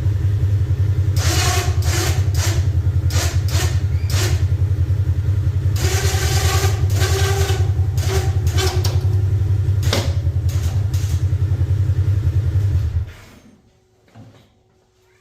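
Polaris RZR side-by-side engine idling steadily, with the plow's electric-hydraulic actuator and winch motor whirring in several short bursts as the plow is raised and swung left and right. The engine shuts off near the end.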